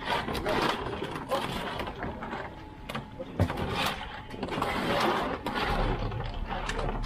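Busy harbourside crowd ambience: people talking in the background, with irregular knocks and clatter.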